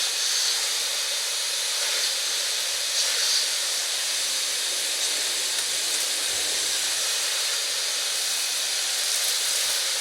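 Vacuum cleaner running steadily: a constant, even hiss of rushing air.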